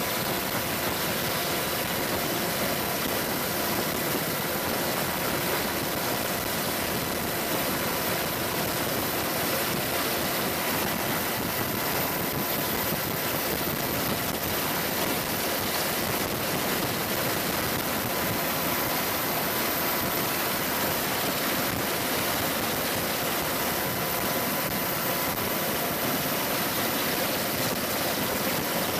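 Helicopter engine and rotor noise heard from aboard a helicopter in flight: a steady, even rush with a faint constant whine.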